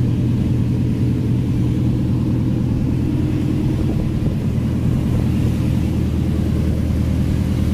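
Fishing vessel's inboard diesel engine running steadily under way, a deep, even drone with a fast, regular pulse.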